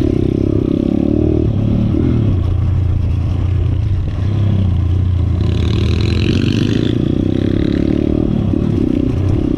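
Viar 150 SF R pitbike's single-cylinder four-stroke engine running at steady low revs with small throttle changes while riding a rough dirt trail, with chassis clatter. A high-pitched rasping sound joins for about two seconds around the middle.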